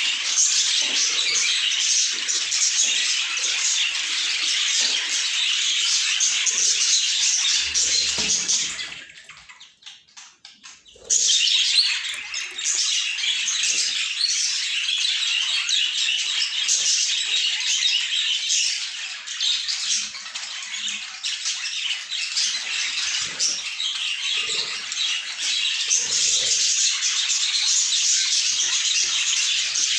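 A flock of budgerigars chattering and warbling continuously in a dense, high-pitched mass of chirps. It fades away about nine seconds in and comes back abruptly about two seconds later.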